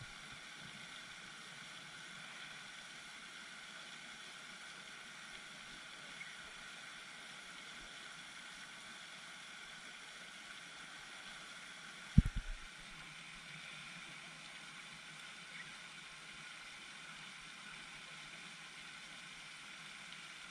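Steady hiss of a pond's spray fountain. About twelve seconds in there is one dull knock, followed quickly by a couple of lighter ones.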